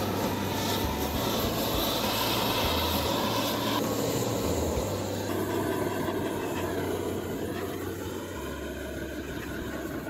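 Handheld gas-canister blowtorch running with a steady hiss as its flame chars the wooden boards of a bird feeder.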